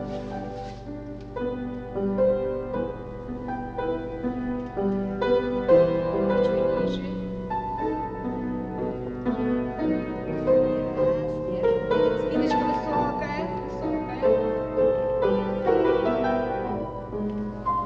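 Piano playing classical accompaniment for a ballet barre exercise, a steady run of held notes and chords.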